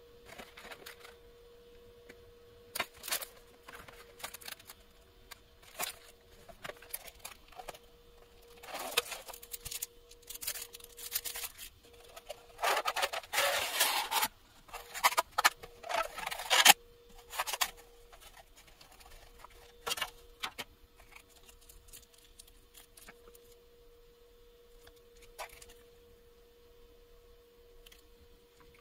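Plastic food packaging being handled: crinkling and rustling of a bento's film wrap, sauce packets and cardboard sleeve, in scattered bursts with the busiest, loudest stretch in the middle as the tray is slid out of its sleeve. A faint steady hum runs underneath.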